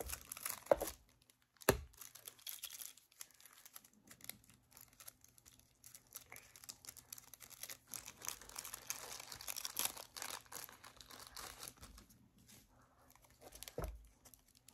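Trading-card box packaging being handled and torn open, with plastic wrapping crinkling and tearing on and off. Two sharp clicks come in the first two seconds, and there is a soft knock near the end.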